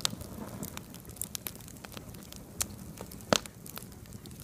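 Wood campfire crackling, with scattered sharp pops from the burning sticks; the loudest pop comes a little past three seconds in.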